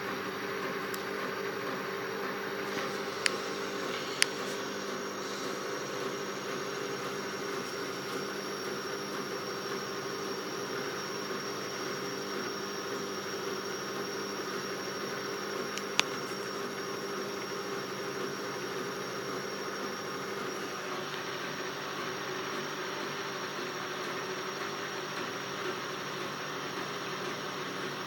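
Stepper motors of a 4-axis CNC hot wire foam cutter driving the wire carriages through a slow cut, a steady hum with a few held tones and a hiss. Three sharp clicks stand out, two a few seconds in and one about halfway through.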